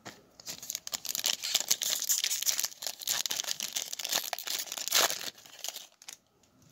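A Panini Select football card pack's wrapper crinkling and tearing as it is ripped open by hand: a dense run of crackles lasting about five seconds that dies away near the end.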